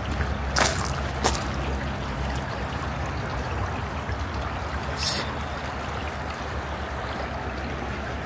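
Lake water lapping and trickling at the shore, a steady rushing with a few light clicks in the first second or so.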